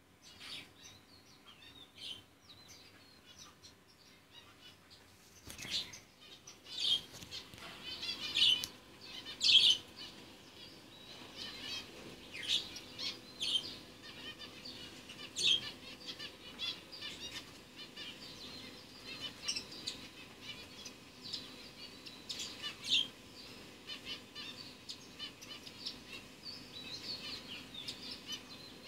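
Small birds chirping in short, irregular high bursts, with wings fluttering, starting about five seconds in and loudest a few seconds later. A faint steady hum lies underneath.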